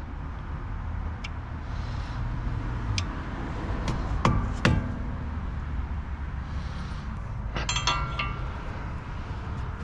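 A few sharp metal taps as a hammer drives a flathead screwdriver under the staked lip of a CV axle nut to pry it up. Near the end, metal tools clink with a brief ring as a socket goes onto the nut.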